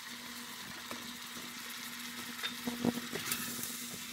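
A steel stew pot cooking on the stove: a low steady hum under a faint sizzle, with a few light knocks about three seconds in.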